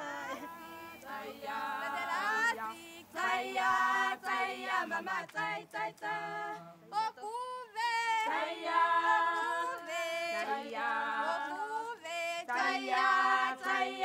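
A group of voices singing unaccompanied, several parts together in harmony, with held and gliding notes.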